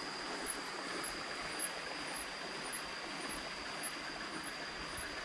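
Steady outdoor background noise with a faint, continuous high-pitched whine running through it.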